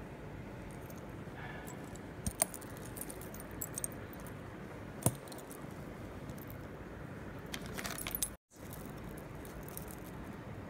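Imitation gold jewellery with pearl drops clinking and jingling as it is handled: a few light metallic clicks, then a short run of jingling near the end, over a faint steady hiss.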